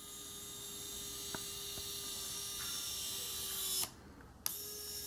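U-type micro gear motor whining steadily as it drives the worm gear that slowly rotates the bionic hand's thumb across the palm. It stops briefly a little before four seconds in, then starts again.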